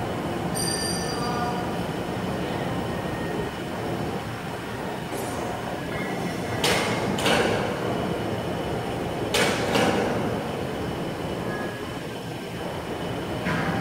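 Machinery of an automated glass storage system running steadily, with short squeals and several brief sharp hissing bursts, two pairs in the middle and one near the end.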